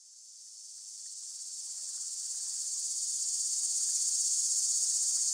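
Crickets chirping in a steady high-pitched trill, fading in from silence over the first few seconds.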